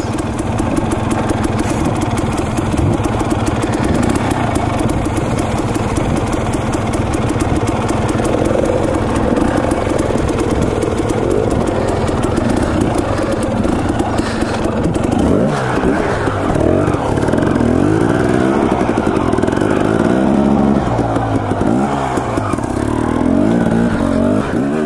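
Dirt bike engine running, with its revs rising and falling repeatedly in the second half as it is ridden up a rocky trail.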